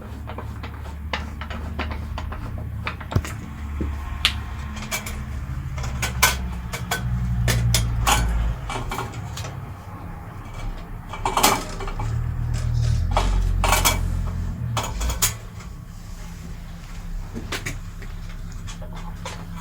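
Scattered metallic clicks, taps and clatter of parts being handled on an Axminster Craft AC1950B bandsaw while a new blade is fitted, over a low rumble.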